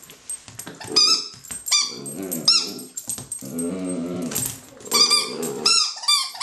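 Rubber squeaky toy squeaking as a dachshund puppy bites it: three squeaks in the first half, then a quick run of about four near the end. In between, the puppy growls low while chewing on it.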